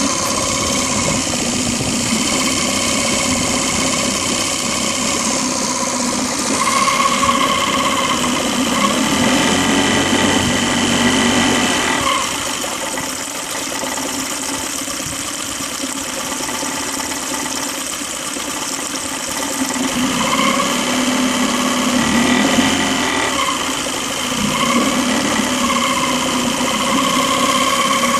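Mercury F9.9M four-stroke outboard motor running, with a steady whistle over the engine note. The revs rise about a quarter of the way in, fall back about halfway through, and rise again near the end.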